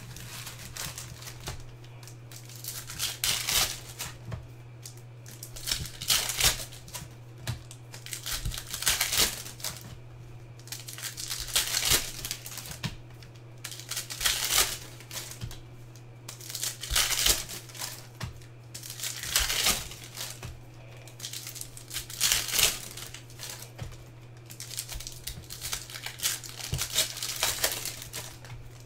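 Plastic wrappers of basketball trading card packs being torn open and crinkled by hand, in repeated short bursts every two to three seconds. A steady low hum runs underneath.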